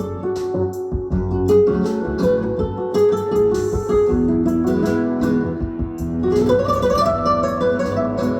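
Instrumental music played back through an audio system, with held notes over a steady bed of plucked notes.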